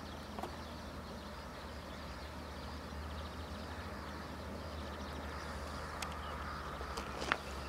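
Riverside outdoor ambience: a steady hiss with a low rumble beneath it, and a faint fast high ticking in the first few seconds. A few sharp clicks come after about six seconds, the loudest about seven seconds in.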